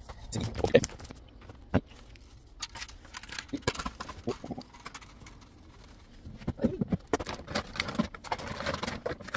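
Household items and clothing being handled: scattered light knocks, clicks and rustling, busier near the end.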